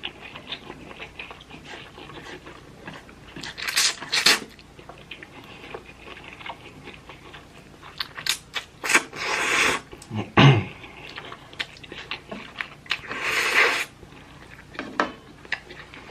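A person eating spicy instant ramen noodles into a close microphone: chewing with small clicks against the bowl, and two long slurps about nine and thirteen seconds in.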